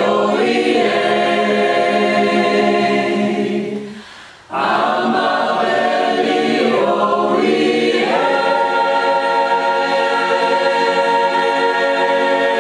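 A group of voices singing a rainforest chant in part harmony, holding long chords. They break off briefly about four seconds in, come back in, and move to a new chord near eight seconds.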